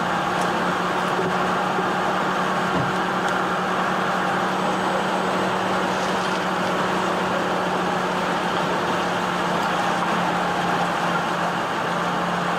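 Steady vehicle engine noise: an even hum with a constant low tone that neither rises nor falls.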